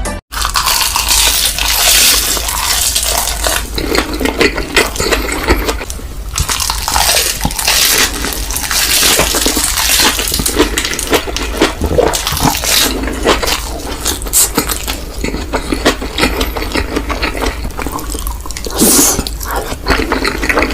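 Water running or pouring, with clinks of dishes and utensils.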